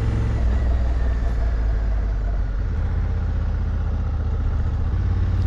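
Parallel-twin adventure motorcycle running steadily on the move, a continuous low engine drone under wind noise on the microphone.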